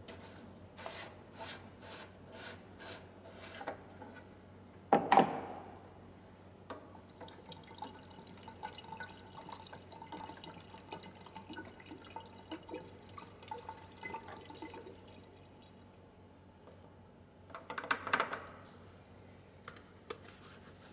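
Bottles of oil-seal additive being emptied into an engine's oil filler: liquid glugging and trickling, with a louder clatter of the plastic bottles being handled about five seconds in and again near the end.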